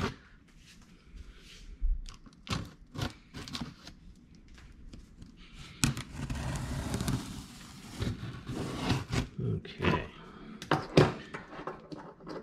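Folding knife cutting the packing tape along the top of a cardboard box, with scattered clicks and knocks as the box is handled. A longer scraping stretch comes about six seconds in.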